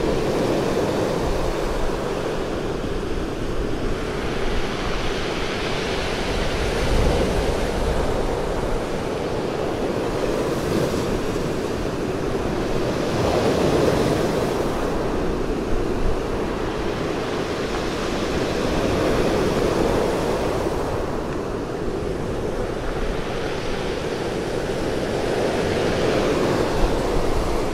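Sea surf breaking and washing up a pebble beach, swelling and easing every few seconds in a continuous rush of water.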